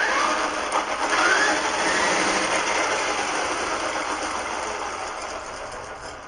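Traxxas Rustler RC truck's electric motor and drivetrain whirring under throttle with the wheels spinning free off the ground, a faint whine rising about a second in, then slowly fading. The truck is being run up to check whether a bent drive shaft is rubbing and making it shake.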